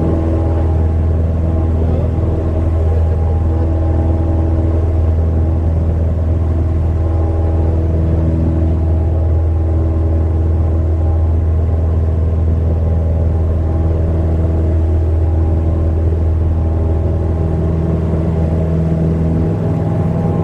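Cockpit sound of a Cessna 172M Skyhawk in flight: its Lycoming O-320 four-cylinder engine and two-blade McCauley propeller running at a steady, unchanging pitch, a deep, even drone.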